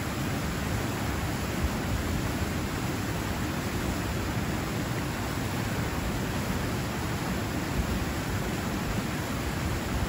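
Small river waterfall pouring over rocks into a pool: a steady rushing of water.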